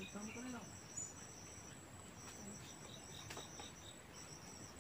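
Insects chirping: a faint, high-pitched train of rapid chirps repeating a few times a second, with short breaks, over a steady thin high whine.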